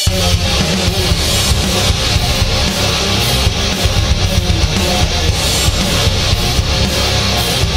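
Loud intro music: rock with distorted electric guitar over a steady drum beat.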